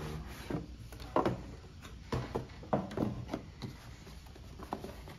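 Cardboard packaging being handled on a table: irregular soft knocks and scrapes as the lid of a small box is worked open.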